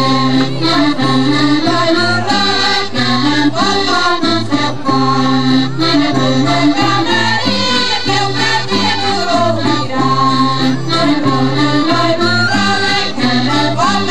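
Live Portuguese folk dance music from a rancho folclórico band, led by accordion, playing a bright, lively melody over a steady, alternating bass.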